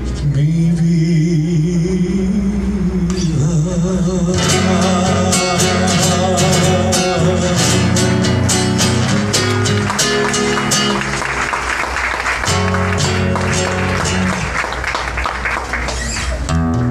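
A man's voice holds the last sung note of the chorus, wavering in pitch, over acoustic guitar; about four seconds in the voice stops and the acoustic guitar plays on alone with fast, busy strumming in a flamenco-like style.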